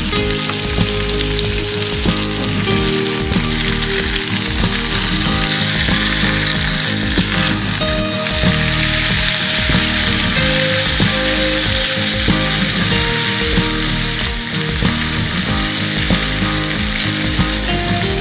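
Chicken breast pieces sizzling steadily as they fry in butter in a frying pan, with a spatula scraping and turning them.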